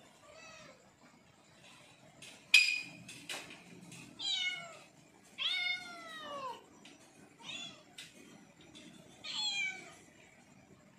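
Young domestic cat meowing repeatedly, about five meows, the longest one in the middle falling in pitch: a hungry cat begging for food. A sharp click about two and a half seconds in is the loudest sound.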